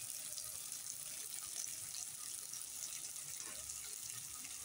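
Potato and ivy gourd (kundru) bhaji sizzling in a kadhai: a steady high hiss with faint small crackles.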